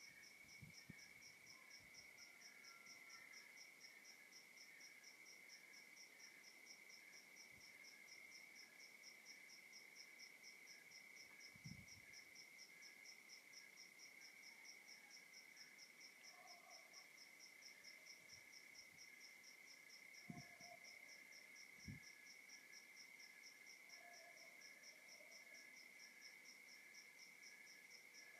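Night insect chorus of crickets: one steady high trill with regular, evenly spaced chirps from other crickets, and a few brief low thumps.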